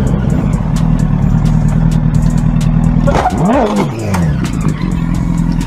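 Motorcycle engine running steadily, its pitch swinging down and back up about three seconds in, then cutting off near the end as the bike goes down in a crash.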